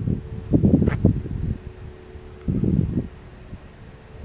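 Crickets chirping faintly and steadily, under irregular low rumbles on the microphone that are strongest in the first second and a half and again about two and a half seconds in.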